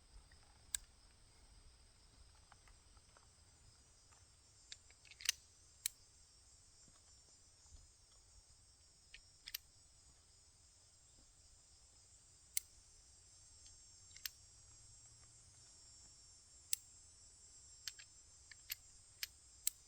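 Faint, scattered sharp clicks as a Single Action Army revolver is loaded by hand: cartridges pushed one at a time into the cylinder and the cylinder clicked round, with a cluster of quicker clicks near the end.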